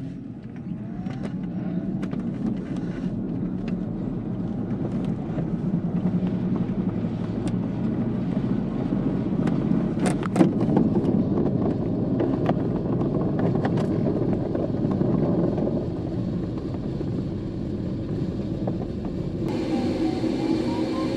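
Aerotow takeoff heard from inside an ASW 27 glider's cockpit: a loud, steady rumble of the glider's wheel on the runway, the tow plane's engine and rushing air, building over the first couple of seconds. Scattered knocks and rattles come from bumps in the runway, with the strongest one about ten seconds in.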